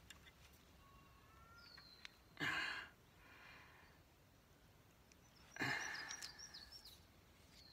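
A man's two short, heavy exhales, about two and a half and five and a half seconds in, with faint high bird chirps between them.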